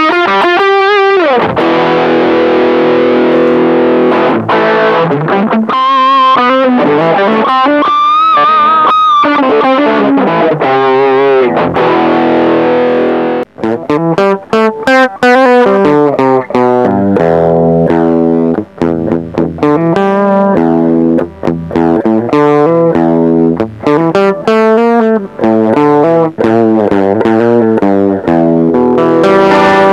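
Electric guitar played through a TC Electronic HyperGravity mini compressor pedal. Sustained chords and bent single notes come first with the pedal bypassed. After a short break about halfway through, the compressor is on for a run of picked notes.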